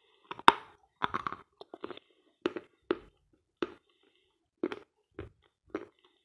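A bite snapping off a piece of dense, dry 'Sloyka' chalk about half a second in, the loudest sound here. Crunchy chewing of the chalk follows, one crunch about every half second.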